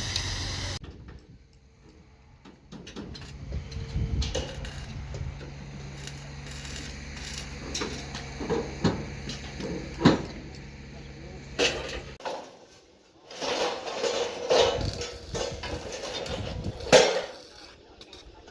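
Small excavator's engine running with a low steady hum while the bucket knocks and scrapes on stone and soil, with several sharp clanks. The hum drops out partway through and more bucket clanks and scraping follow.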